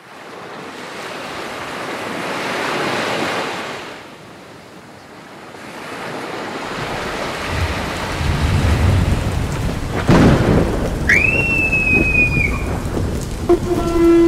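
Thunderstorm soundtrack: a swell of rushing rain-like noise, then deep rolling thunder with a sharp crack about ten seconds in. A high gliding screech follows, and near the end a steady low horn-like note begins.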